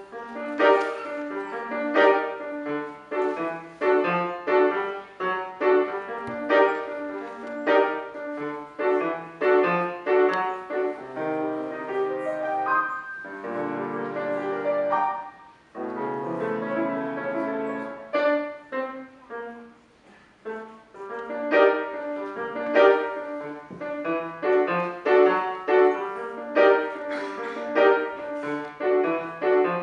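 Steinway grand piano played solo: quick struck notes and chords, with a passage of held chords and low bass notes about halfway through, broken by short pauses.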